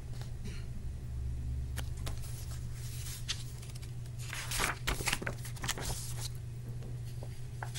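Paper pages of a paperback picture book rustling as a page is turned, loudest in a run of rustles from about four and a half to six seconds in, over a steady low hum.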